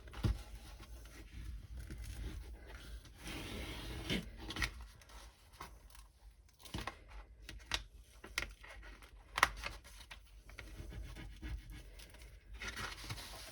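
Hands rubbing and pressing on the back of a diamond painting canvas to work a crease out, with rustling, scratching and scattered light clicks from the canvas being handled.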